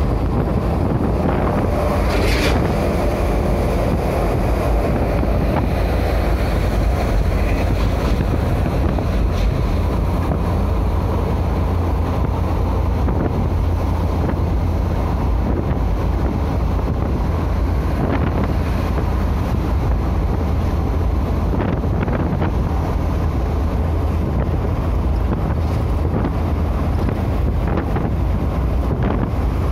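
Steady in-cab road noise of a vehicle cruising at highway speed: a low engine and tyre rumble with wind noise over it.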